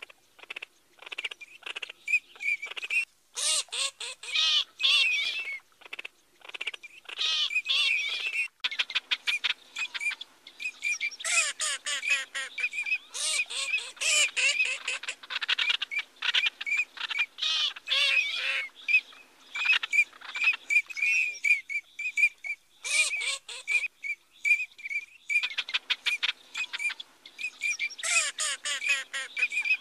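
Common teal calling: many short, high-pitched calls in quick succession, with a few brief pauses between runs.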